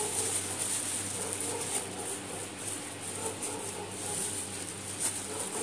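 Plastic carrier bag rustling and crinkling as raw chicken pieces are mixed by hand with a wet masala marinade inside it.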